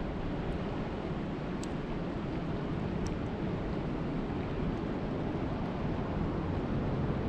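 Steady rushing noise of water and rain, even throughout, with a faint high tick about three seconds in.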